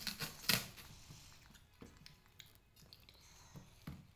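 Large kitchen knife cutting watermelon on a plastic tray: two sharp knocks of the blade in the first half second, then scattered small crunches and clicks as the rind is cut.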